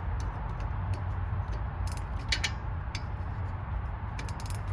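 Scattered light metallic clicks and taps of a ring spanner working the lower bolt of a Jeep Wrangler's rear brake caliper, with a small cluster about two seconds in and another near the end, over a steady low rumble.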